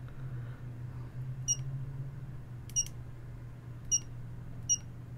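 Four short high beeps from the clock kit's piezo buzzer, one every second or so, as its setting buttons are pressed, over a low steady hum.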